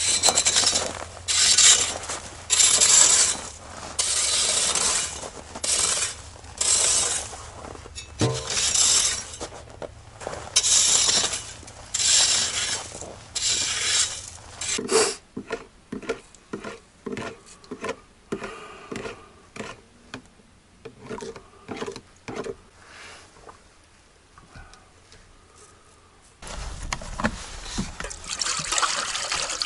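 A long-handled tool scrapes over snowy, frozen ground in rough strokes of about a second each, a dozen or so, then gives way to quieter scattered clicks and knocks. About 26 seconds in, water pours in a steady stream from a plastic canister into a metal pot.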